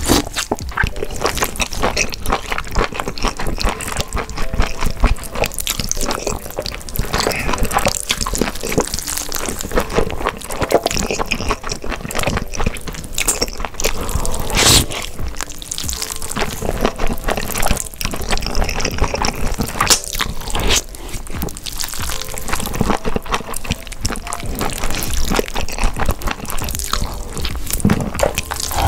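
Close-miked slurping and chewing of thin, sauce-coated noodles: a dense run of wet clicks and smacks, with background music underneath.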